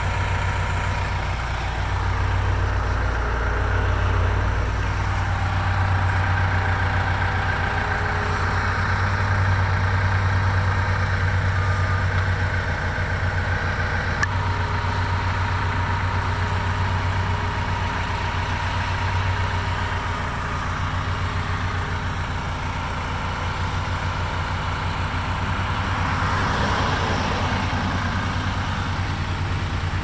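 Diesel engine of a Cat 262 skid steer loader running steadily at a constant speed, heard from inside the cab, with a faint steady whine above the low hum.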